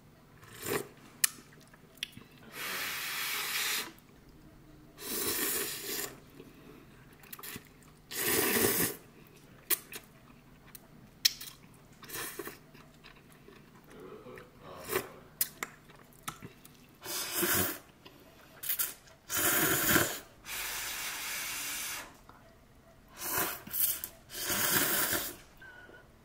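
Noodles and broth being slurped from a spoon and chopsticks: a series of slurps, each about a second long, with short clicks between them.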